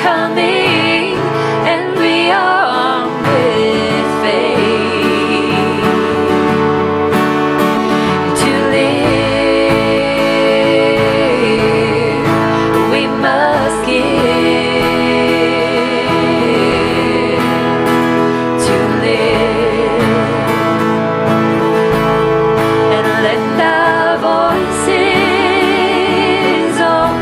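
Women singing a worship song together over instrumental accompaniment, with long held notes that waver in pitch.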